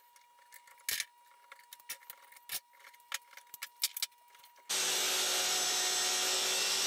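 Scattered light clicks and knocks of bar clamps being handled on a glued-up wood block. About two-thirds of the way in, a power miter saw comes in suddenly and loud, running steadily as it crosscuts the laminated block.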